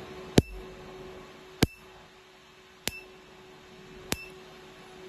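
Tattoo-removal laser firing single pulses into the skin: four sharp snaps at an even pace of about one every 1.25 seconds, several with a brief high beep after them, over the machine's steady low hum.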